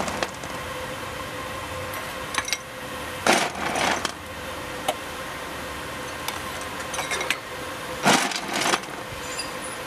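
Coal being fired into the small firebox of a 7¼-inch gauge model steam locomotive: a shovel scrapes and coal clatters in two rounds, about three and eight seconds in, with a few lighter clinks between. Under it runs the steady hiss and hum of the blower drawing the fire while the boiler raises steam.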